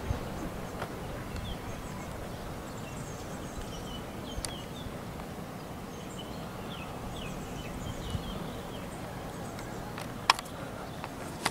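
Steady outdoor background rush with small birds chirping faintly now and then. Two sharp clicks, the louder one near the end.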